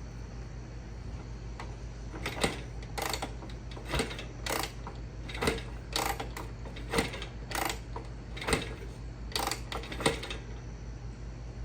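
Antique racing motorcycle being primed before starting: about a dozen short, irregular mechanical clacks over several seconds, over a steady low hum.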